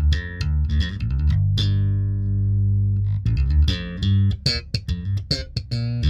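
Electric bass played fingerstyle through an Efremoff HomeBox-110, a 100 W hybrid bass combo with one 10-inch speaker and a tweeter, heard raw through a studio mic. A run of quick plucked notes, then one note held for over a second, then quick notes again.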